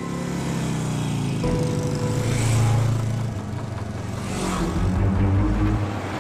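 Motor vehicles driving past, their engine sound swelling and fading as they go by, most loudly about two and a half and four and a half seconds in.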